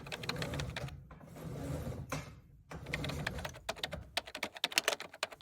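Rapid clicking and tapping of small hard objects, with a scratchy rustle about a second in, then a quick run of separate taps.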